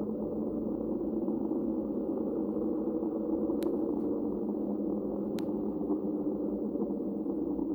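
Made-up creature sound effect for the mosasaur Platecarpus: a steady, low droning rumble, with two faint clicks in the middle.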